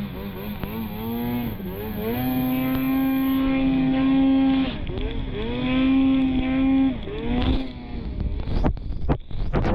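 Snowmobile engine running under changing throttle, its pitch dropping and climbing back up several times and holding steady between, with choppy drop-outs and a few sharp knocks near the end.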